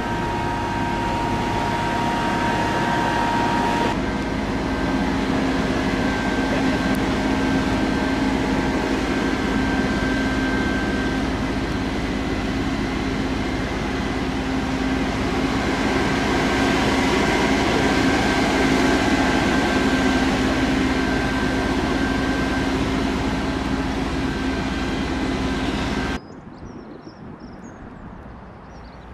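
Fire engines' engines and pumps running steadily while supplying hoses, a constant loud drone with a steady hum in it. About 26 seconds in it gives way to much quieter outdoor ambience with birds chirping.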